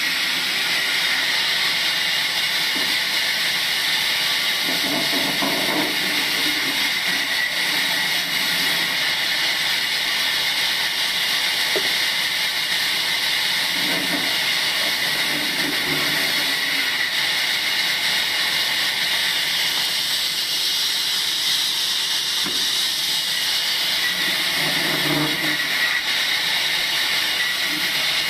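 Table sawmill machine running steadily with a loud, high hiss and whine, with short lower-pitched swells every few seconds.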